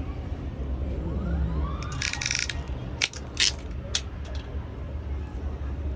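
A brief rapid clatter about two seconds in, then a few sharp separate clicks, as network-cable wires are trimmed and handled with a crimping tool for an RJ45 plug. A steady low hum runs underneath.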